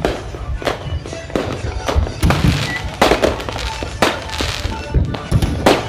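Aerial fireworks shells bursting in a rapid, irregular barrage of sharp bangs, about two a second, over a steady low rumble.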